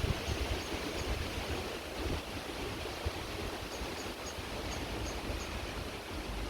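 Creek water running steadily, with wind gusting against the microphone. About halfway through, a row of faint, high, evenly spaced chirps starts, about three a second.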